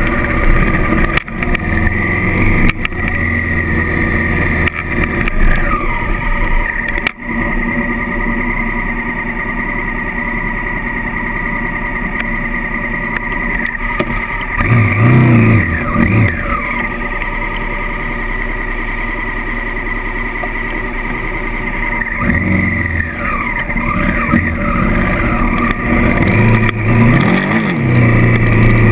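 Honda CRF1000L Africa Twin's 998 cc parallel-twin engine pulling the bike along a dirt track under changing throttle. The revs swell several times in the second half and the sound dips briefly about seven seconds in.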